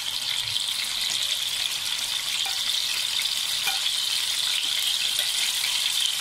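Hot oil sizzling steadily in an aluminium cooking pot under chicken, potato pieces and ground spices as blended onion paste is poured in.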